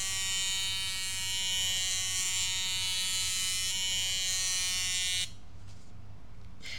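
Ladybug bristlebot's tiny vibration motor buzzing as the robot scoots across a tile floor on its bristles, a steady high-pitched electric buzz. About five seconds in the buzz drops and turns quieter and duller.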